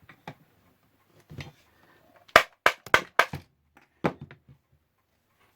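Mallet blows on a wide flat-blade screwdriver wedged into a radio's plastic case, prising out a stuck part: a few light taps, then a quick run of about five hard knocks in the middle, the first the loudest.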